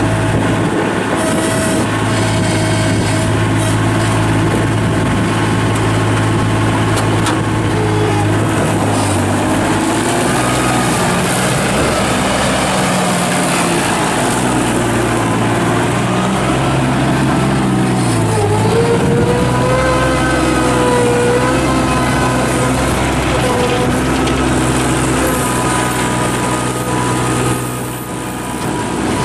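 Bobcat 643 skid steer's Kubota diesel engine running. Its speed is steady at first, then varies from about ten seconds in, dipping sharply and picking back up about 18 seconds in.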